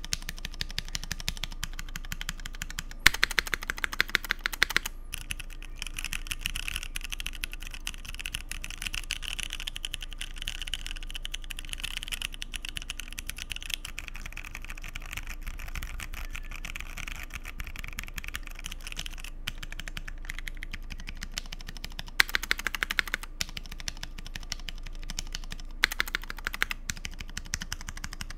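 Continuous typing on a mechanical keyboard with C3 Equalz Dragonfruit tactile switches in an aluminum plate under GMK keycaps: a dense run of key clacks, with louder, faster flurries of keystrokes about three seconds in and twice near the end.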